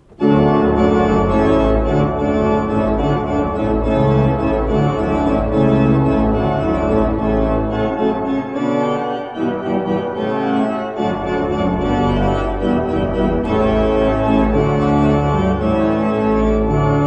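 Organ music playing full sustained chords over a moving bass line, starting abruptly.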